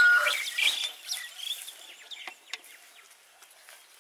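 A loud animal call right at the start, fading over the first second and a half, followed by several short, fainter high calls.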